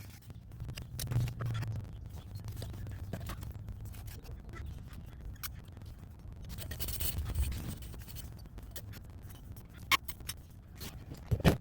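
Irregular scraping and rubbing handling noises with scattered light clicks, and a couple of sharper clicks near the end.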